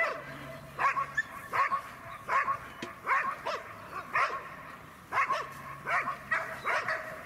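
A dog barking over and over, about one bark every half second to one second.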